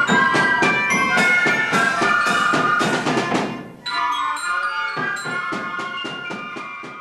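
Koteki fife and drum band playing: fifes carry a melody over steady strikes of drums and clash cymbals, about four beats a second. The sound breaks off abruptly about four seconds in, picks up again, and fades near the end.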